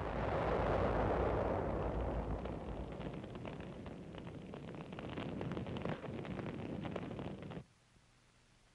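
Rushing roar of an explosion and fire, with scattered crackles and bangs, slowly easing and then cutting off abruptly about seven and a half seconds in, leaving only a faint hum.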